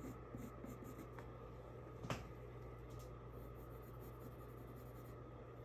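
Blue colored pencil drawing faint strokes on paper, tracing a circular outline, with one light tick about two seconds in.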